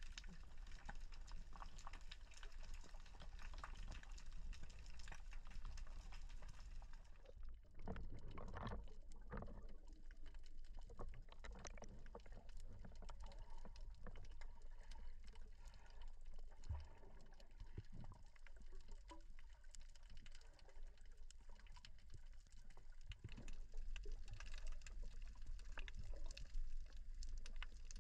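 Underwater ambience picked up by a diver's camera: a muffled low water rush with a dense, continuous crackle of small clicks, and a louder surge of water noise about eight seconds in.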